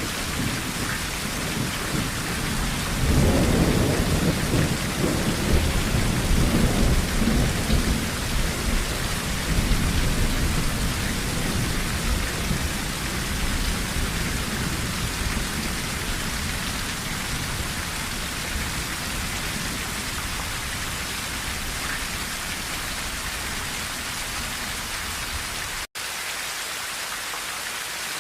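Steady rain drumming on a tin roof, with a long roll of thunder that swells about three seconds in and rumbles away over several seconds. The sound drops out for an instant near the end.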